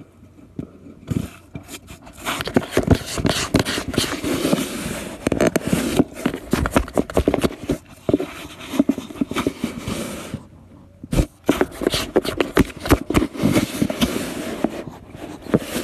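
Rapid, irregular scratching and scraping on a cardboard box with a cat inside it, full of sharp little clicks, with a short pause about ten seconds in.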